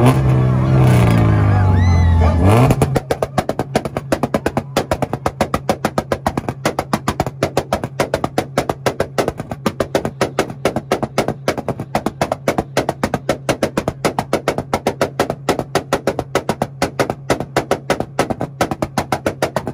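A car engine held on a two-step rev limiter: a steady drone broken by rapid, uneven popping bangs, about six a second. It follows a louder burst of revving and voices in the first few seconds.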